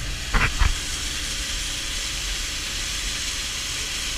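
New Holland TR70 combine running, heard from inside the cab: a steady hiss over a low engine drone, with two short knocks about half a second in. The grain tank has just been emptied and the unloading auger is still out.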